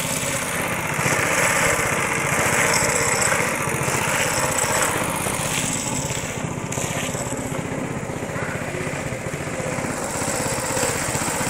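Small boat's outboard motor running steadily as the boat moves through floodwater.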